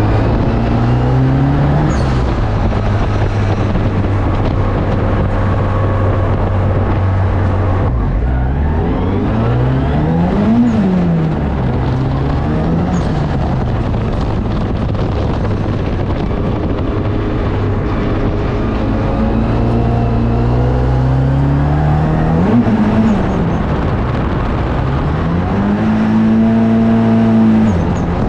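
Nissan S14 drift car's engine revving hard and repeatedly, its pitch climbing and dropping as the throttle is worked and shifts are made. A steady engine drone runs underneath.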